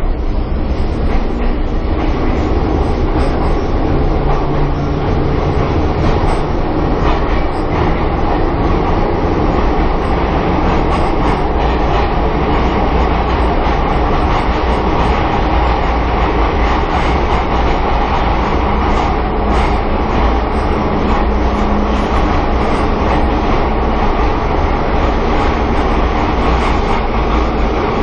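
Pyongyang Metro subway train running between stations, heard from inside the carriage: a loud, steady rumble of wheels on rail and running gear, with faint clicks from the track.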